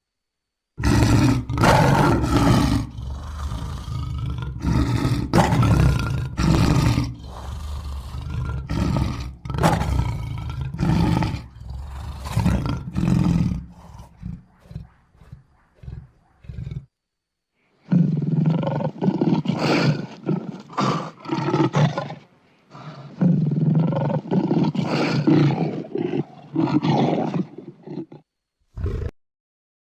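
Lion roaring loudly in a long series of rough roars and grunts. The series breaks off for about a second, then a second series follows, ending with one short grunt.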